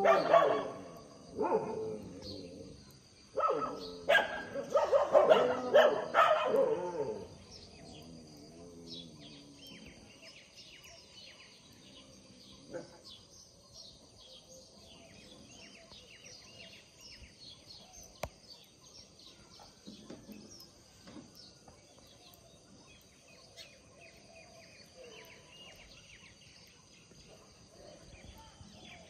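A group of street dogs barking loudly in a confrontation for about the first seven seconds. After that it goes much quieter, with birds chirping.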